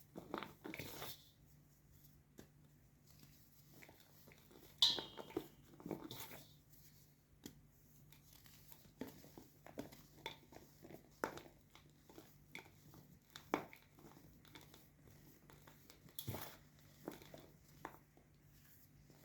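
White gym chalk being crushed, crumbling and crunching in faint, irregular crackles, with a sharper crunch about five seconds in.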